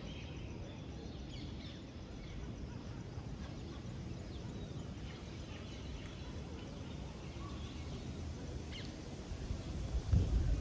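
Outdoor ambience: a steady low rumble with scattered short bird chirps. The rumble swells louder near the end.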